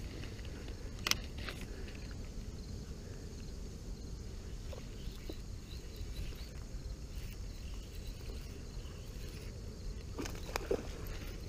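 Spinning reel and rod being handled during a lure retrieve. A low steady rumble runs underneath, with a sharp click about a second in and a few more sharp clicks near the end.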